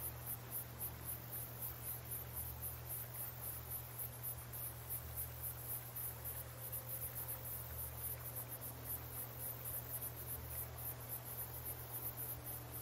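Crickets chirping in a fast, even, high-pitched pulse, over a low steady hum.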